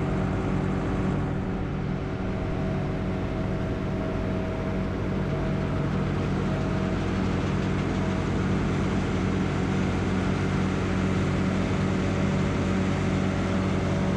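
A farm machine's engine running steadily at an even speed, with a constant low hum and no revving.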